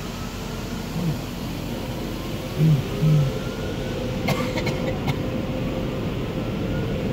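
Automatic car wash heard from inside the car: a steady rush of water spraying over the windshield with the wash machinery running. A few brief low hums come about two and a half to three seconds in, and a steady hum with a few clicks starts about four seconds in.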